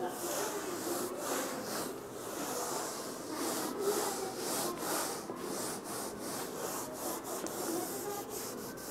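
A duster rubbing across a whiteboard in quick, repeated wiping strokes as marker writing is erased.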